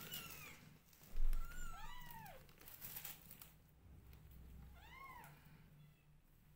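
Newborn kittens mewing in short, high-pitched cries that rise and fall: one at the start, a few overlapping about one and a half to two seconds in, and another about five seconds in. A low thump about a second in is the loudest sound.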